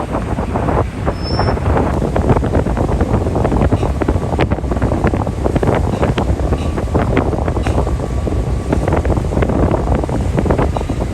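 Wind buffeting the microphone in irregular crackling gusts over the steady low rumble of a river ferry under way.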